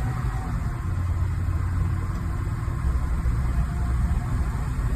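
2019 Blue Bird bus engine running steadily under way with a steady low rumble; the driver judges that it runs just fine.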